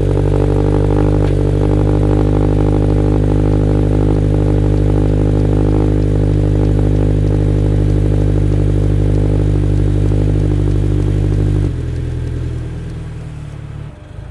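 2022 Subaru BRZ's 2.4-litre flat-four (FA24) running through a Faction Fab Premium dual-exit cat-back exhaust, held at a steady engine speed. About twelve seconds in the sound drops and slowly fades lower.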